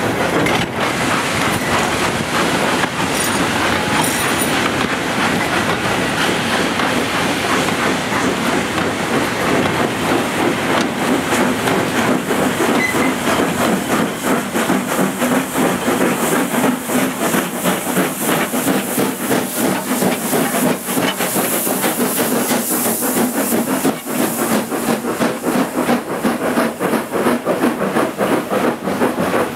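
Loose-coupled freight wagons clattering past, their wheels clicking rapidly over the rail joints. In the second half the steam locomotives banking at the rear go by working hard, with a strong steam hiss joining the rattle.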